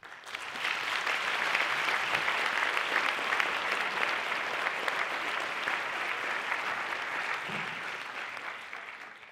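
Audience in a lecture theatre applauding: many hands clapping at once, swelling quickly in the first second, holding steady, then fading toward the end.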